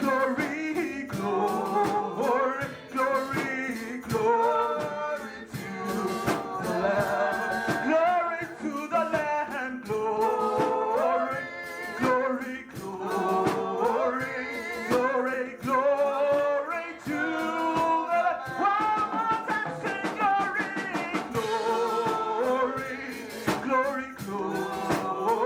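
Church worship band playing a praise chorus, with voices singing over a drum kit and instruments throughout.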